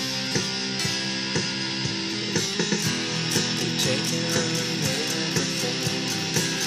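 Stratocaster-style electric guitar played with a pick: chords and notes ringing over sustained low tones, with sharp attacks in a steady beat, about two a second at first and quickening to about four a second near the middle.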